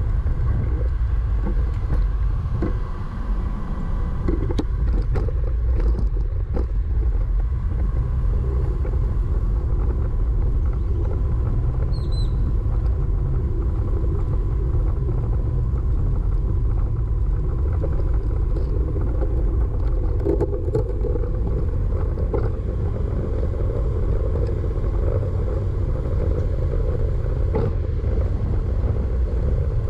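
Steady low wind rumble on the microphone during a bicycle ride, with road traffic going by.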